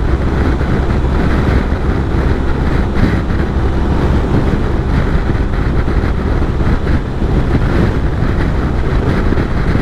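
Motorcycle running steadily at motorway speed, its engine hum mixed with steady wind rush on the onboard microphone.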